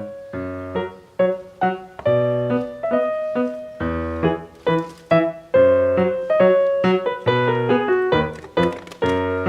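Background music: a light piano or keyboard tune of quick struck notes over lower bass notes, in a steady rhythm.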